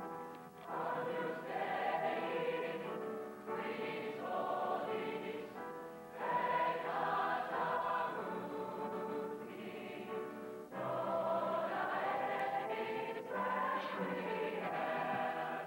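Mixed-voice high school choir singing, phrase after phrase with short breaks between them, as heard on an old VHS recording.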